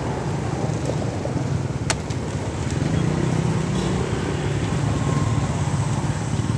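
Motorbike engine running close by over steady street traffic rumble, louder in the second half, with one sharp click about two seconds in.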